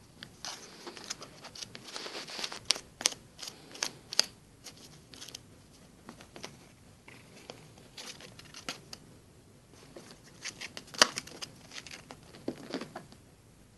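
Cat biting and clawing at an empty cardboard toilet-paper tube: a run of short scratchy crackles and clicks, in two bouts with a quieter stretch between.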